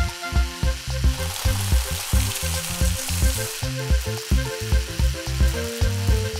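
Background music with a steady thumping beat, over the hiss of grain kernels pouring down a chute into a small woven basket; the hiss is strongest in the first half and fades after about three and a half seconds.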